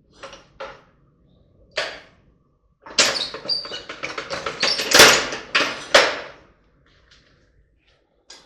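Metal knocking and clattering during work on a driveshaft's U-joints: a few separate knocks, then a dense run of clanks lasting about three seconds, and one more knock near the end.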